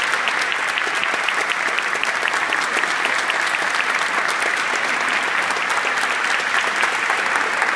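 Large audience applauding steadily: the dense patter of many hands clapping at once.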